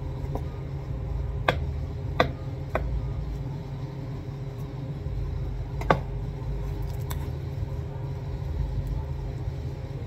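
A few sharp clicks and taps, four of them, from a boning knife and gloved hands working a raw chicken carcass on a cutting board, over a steady low background hum.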